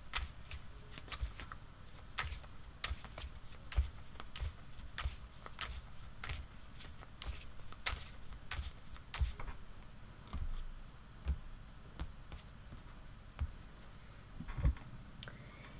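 A deck of oracle cards shuffled by hand: a run of soft, irregular card clicks and taps, dense at first and thinning out in the second half.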